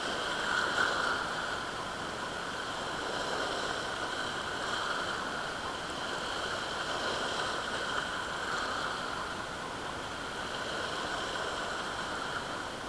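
Shallow surf washing and foaming over a rocky reef, a steady rush of water with no distinct splashes.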